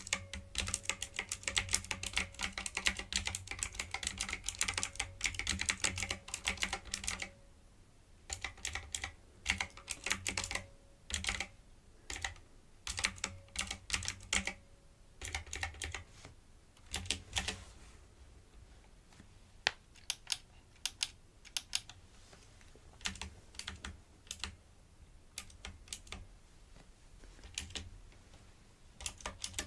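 Typing on a typewriter-style keyboard: a fast, continuous run of key clicks for about the first seven seconds, then shorter clusters of keystrokes with brief pauses between them.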